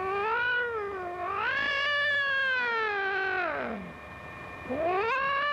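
Black-and-white alley cat yowling angrily: long drawn-out calls that rise and fall in pitch. There are two in a row, the second about two and a half seconds long, and a third begins near the end.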